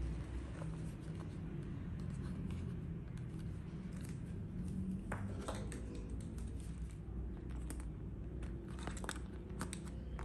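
Vinyl air mattress and its fittings being handled: scattered crinkling and small clicks, busiest about halfway through and near the end, over a steady low hum.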